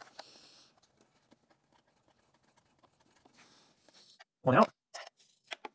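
Faint clicks, scrapes and rustles of hands and a screwdriver working at the screws of an electric dirt bike's rear plastic panel. A short, loud vocal sound comes about four and a half seconds in, followed by a few small clicks.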